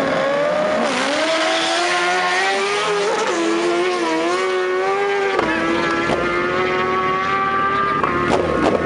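High-revving sport-motorcycle engines, one a BMW S1000RR, as two bikes launch in a drag race and pull away down the strip. The engine note rises at the start, wavers, drops about five seconds in, then holds steady, with a few sharp cracks near the end.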